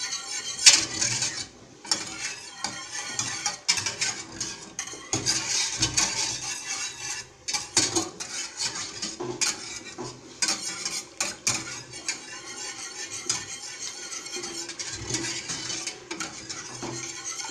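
Wire balloon whisk beating béchamel sauce in a stainless steel saucepan, its wires rapidly clinking and scraping against the pan's sides and bottom without a break.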